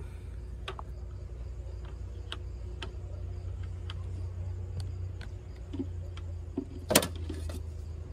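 Utensils being handled: scattered light clicks and knocks, with one loud knock about seven seconds in, over a steady low hum.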